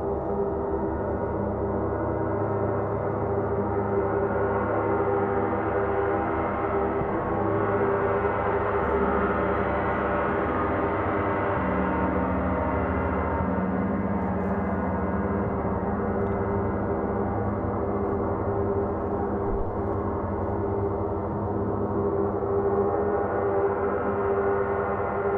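Large gongs of a triple gong bath, one of them a Paiste, played with a soft fleece-headed mallet, giving a steady, dense wash of overlapping ringing tones. About twelve seconds in, a new lower tone swells into the mix.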